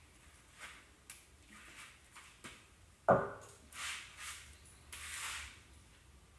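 Aluminium foil reacting in a copper sulphate and salt solution, fizzing in short hissing spurts a few times as the reaction starts to cook. A single sharp knock about three seconds in is the loudest sound.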